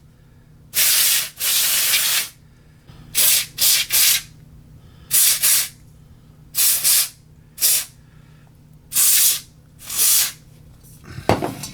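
Aerosol can sprayed in a series of short hissing bursts, about a dozen, each less than a second long with short pauses between. The spray is being used to clean soot off a tube radio chassis.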